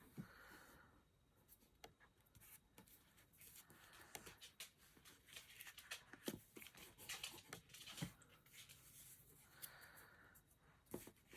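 Near silence, with faint scattered taps and rustles of card pieces being handled and pressed together.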